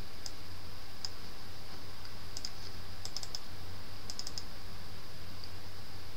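Computer mouse clicking: single clicks and quick runs of double-clicks, over a steady low electrical hum and hiss from the recording.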